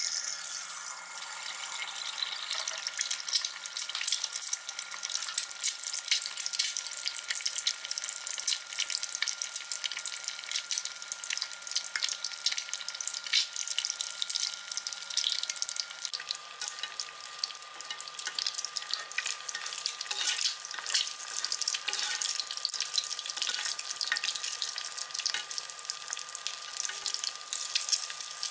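An egg frying in a small wok of hot vegetable oil for a Thai-style crispy fried egg. It sizzles loudly the moment it goes in, then keeps crackling steadily with constant small pops of oil.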